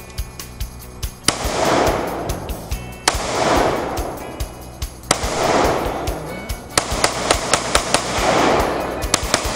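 Rifle shots fired one at a time, about five of them roughly two seconds apart. Each crack is followed by a long swell of noise that dies away over a second or so.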